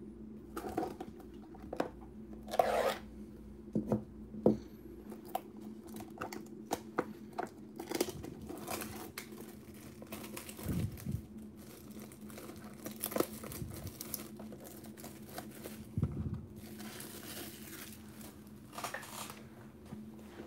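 Plastic shrink wrap being torn and crinkled off a trading-card box, with scattered clicks and scrapes of cardboard being handled, and a longer crinkling stretch near the end.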